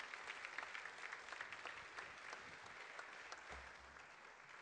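Audience applauding: a dense patter of many hands clapping that slowly fades toward the end.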